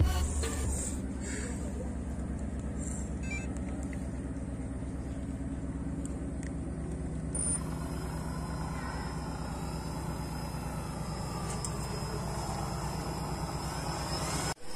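Small brushless electric motor turning a plastic propeller: a steady hum, with a thin high-pitched whine joining about halfway through, cutting off abruptly near the end.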